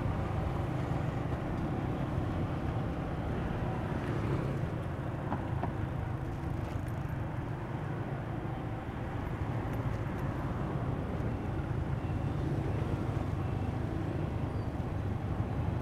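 Steady low engine hum with wind and road noise from riding on a motorbike through light street traffic.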